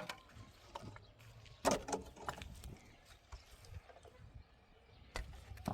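Scattered knocks and clatters, the loudest a cluster just under two seconds in, with faint rustling between them.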